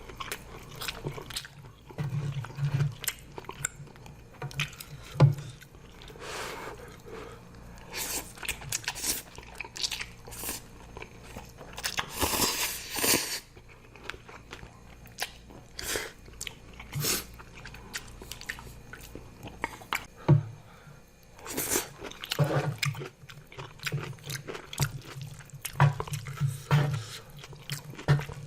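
Close-miked mouth sounds of a person eating zucchini-noodle spicy ramen with kimchi and cucumber: irregular chewing and biting with crunches and wet clicks, and a longer noisy burst about twelve seconds in.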